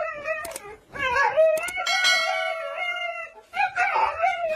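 A dog howling: one long held call starting about a second in, with shorter yowls just before and near the end.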